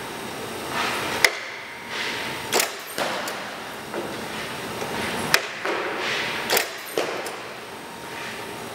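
Goalie skate blades scraping across synthetic ice plastic in short repeated pushes, about five rushes, mixed with about seven sharp knocks as the goaltender's gear hits the surface during butterfly drops and recoveries.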